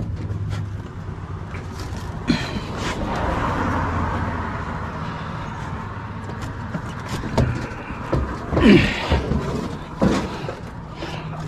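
A vehicle going by, swelling and fading, followed by several knocks and clunks of scrap being handled.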